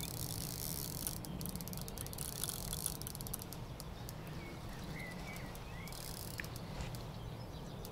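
Fishing reel clicking in fast runs while a hooked catfish is played on a heavily bent rod. The clicking thins out about three seconds in, picks up again briefly around five seconds, then turns to scattered ticks.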